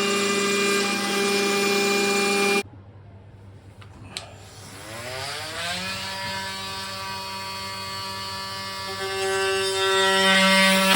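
Avid CNC router spindle running with a steady pitched hum that cuts off abruptly about two and a half seconds in. After a click it spins back up with a rising whine that settles into a steady tone, getting louder near the end.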